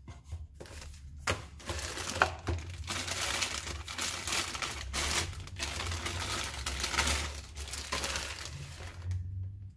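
Clear plastic bag crinkling and rustling in irregular bursts as a spinning reel is pulled out of it and unwrapped.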